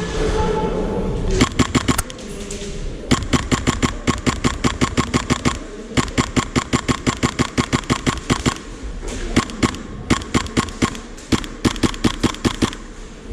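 HPA-powered airsoft MP7 firing full-auto in about five bursts of rapid, sharp shots, each lasting one to two and a half seconds, with short pauses between them.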